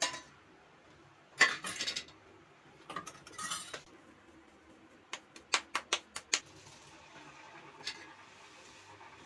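Steel kitchen utensils clink and clatter a few times as a fried puri is lifted from the kadhai with a wire strainer and set on a steel plate. Then comes a quick run of about seven sharp slaps as puri dough is patted flat between the palms, and near the end the faint sizzle of the puri frying in hot oil.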